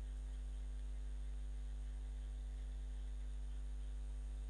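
Steady low electrical mains hum, a constant buzz with its overtones and no change in level, picked up on the recording line before any speech.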